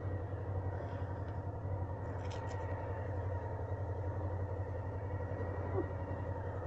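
Motorcycle engines idling, a steady low hum with no revving, heard muffled.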